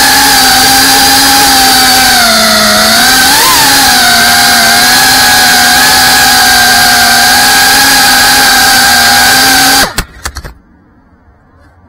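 FPV racing quadcopter's motors and propellers whining loudly and steadily, heard from its onboard camera, the pitch dipping and swelling briefly with throttle changes. About ten seconds in the whine cuts off abruptly, followed by a few sharp clacks.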